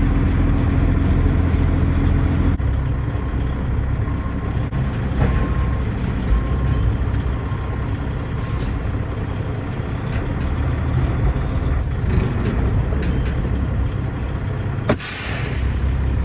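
Semi-truck tractor's diesel engine running steadily as the tractor backs under a trailer to couple to it, with a few clanks along the way. About a second before the end comes a sharp clank, then a second-long hiss of released air.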